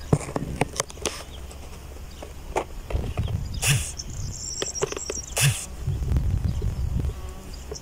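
Wind rumbling on the microphone, with scattered sharp clicks and knocks as rapeseed stems brush past, and a brief high twitter a little after four seconds in.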